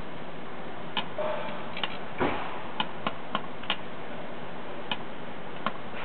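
Sharp, irregular clicks and snaps, about nine in six seconds, the loudest a little over two seconds in: electrical arcing from the metal window screen wrapped around a butane lighter inside a running microwave oven.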